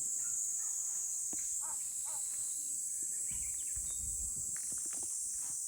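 A steady, high-pitched chorus of insects drones on throughout, with a couple of short chirping calls about two seconds in and low rumbling a little past the middle.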